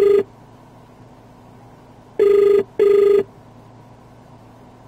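Ringback tone of an outgoing phone call, played through the Ford EcoSport's SYNC hands-free system: a double ring of two short steady tones in quick succession. The tail of one ring ends just as the sound starts, and a full double ring follows about two seconds in, while the call waits to be answered.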